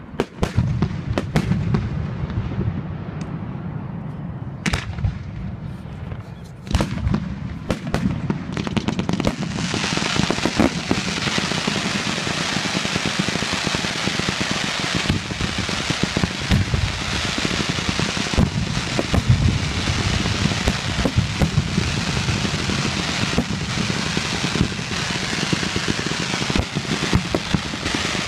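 Fireworks display: separate booming shell bursts for the first several seconds, then from about nine seconds in a dense, continuous barrage of rapid bangs.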